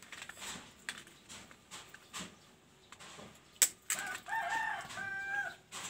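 A rooster crowing once, about four seconds in, in two drawn-out pitched phrases. Just before it comes a single sharp knock, the loudest sound, with a few fainter knocks earlier.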